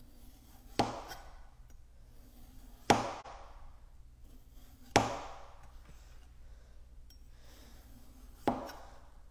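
Chef's knife striking a plastic cutting board four times, about two seconds apart, as strips of skin are sliced off a cucumber.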